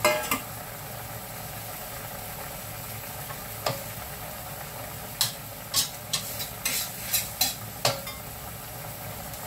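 Metal spatula stirring meat and potato chunks in a steel wok, scraping and clanking against the pan over a steady sizzle of simmering sauce. The clanks come singly at first, then about eight in quick succession between five and eight seconds in.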